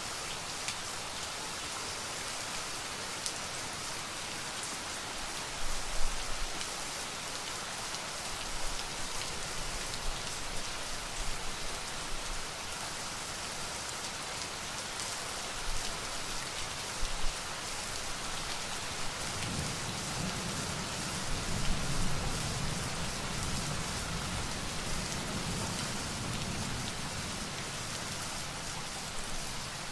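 Steady rain falling on a hard surface, with a few louder drop hits. About two-thirds of the way through, a low roll of thunder rumbles for several seconds.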